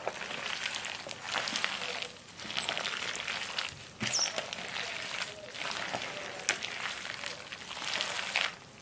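Rubber-gloved hand mixing wet kimchi filling of shredded vegetables and greens in red pepper seasoning in a stainless steel bowl: a wet, squishing rustle in repeated strokes with brief pauses between, and now and then a sharp click.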